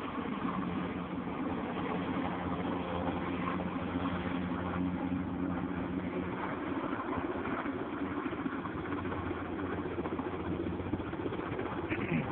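Sikorsky S-58T helicopter's turbine engine and rotor running steadily, a constant hum that holds the same pitch.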